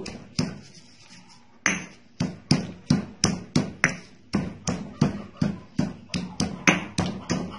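Pestle pounding fresh mint leaves and stems in a mortar, crushing them to press out the juice: one knock, a short pause, then a steady beat of about four strikes a second.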